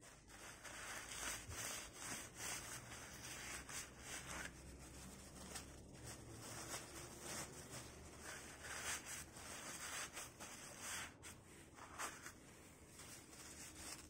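Paper towel rubbing and crinkling as it wipes out the threaded bottom bracket shell of a bicycle frame, in an irregular run of soft scrubbing strokes.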